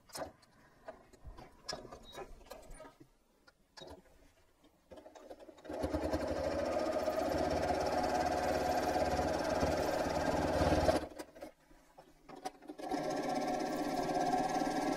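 Domestic sewing machine stitching steadily while free-motion quilting. It starts about six seconds in, stops briefly near eleven seconds, then runs again. Before it starts there are only a few light clicks.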